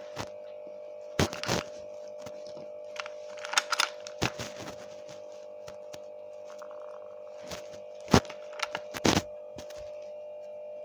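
Irregular clicks and knocks of small plastic toy figures being handled and set down on a table, the sharpest a little past the middle, over a steady unbroken electrical-sounding hum.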